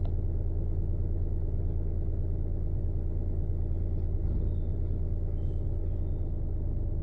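Toyota Belta's engine idling steadily, a low, even hum with no change in speed.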